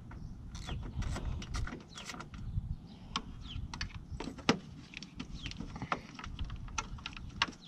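Hand ratchet clicking in irregular runs while working the headlight assembly's mounting bolts, with sharp metal ticks and clatters.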